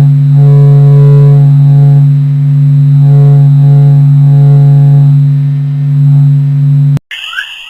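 Space sound made from NASA and ESA data: a loud steady low hum with higher tones above it that change in steps about every half second, like a slow eerie tune. Near the end it cuts off abruptly and quick rising chirps over a high hiss begin.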